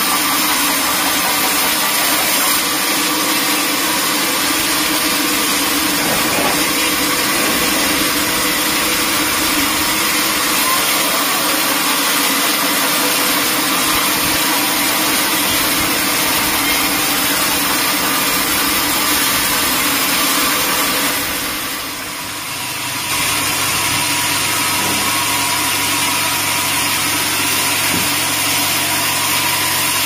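Band sawmill running, its blade sawing lengthwise through a teak log with a loud, steady mechanical drone. About two-thirds of the way through the sound dips briefly, then comes back as a steadier, lower hum.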